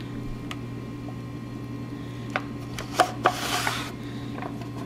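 Paderno three-blade countertop spiralizer being hand-cranked through a cucumber, cutting it into noodles: soft cutting and scraping with scattered plastic clicks, and a louder swishing scrape about three seconds in.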